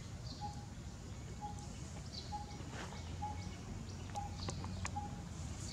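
Outdoor ambience with birds calling: a short, low single note repeated about once a second, with scattered high chirps and faint clicks over a steady low background rumble.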